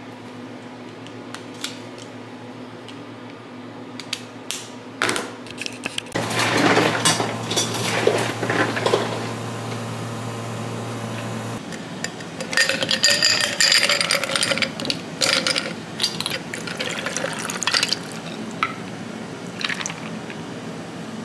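Scattered clinks, then water running into a container for several seconds over a low hum, followed by a run of dishes and utensils clattering.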